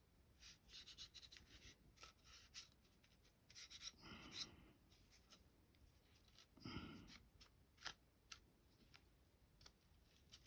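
Faint scratchy rubbing of an oily cleaning cloth wiping down pistol parts, in many short strokes with light clicks of metal handling, and two duller rustles about four and seven seconds in.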